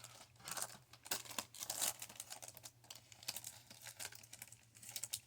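Plastic trading-card pack wrapper crinkling and tearing in irregular crackles as it is handled and opened.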